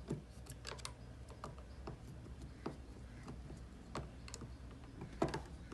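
Scattered light clicks and ticks of a screwdriver working on the plastic housing of a Samsung washing machine control board as its screws are undone, with a louder knock near the end.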